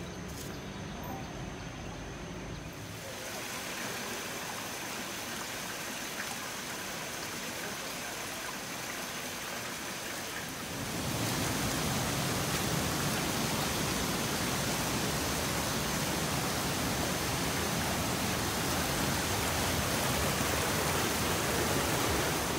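Shallow rocky stream rushing over stones: a steady rush of water that grows louder about eleven seconds in.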